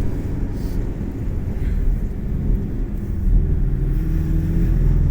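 Porsche 718's engine running under way, with road and tyre rumble, heard from inside the car. The engine note climbs gently a little after halfway.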